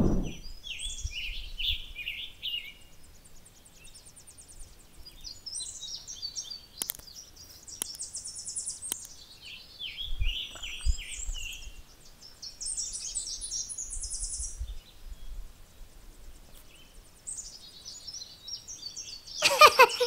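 Tennessee warbler singing: about four songs of high, rapid chipping notes that run into quick trills, with pauses between them. A faint low rumble lies beneath.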